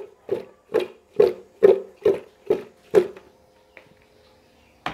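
Pumpkin chunks and pork being tossed in a hand-held metal pot: a steady series of clattering knocks, about two a second, each with a short ringing note. The tossing stops about three seconds in, and a single sharp knock comes near the end.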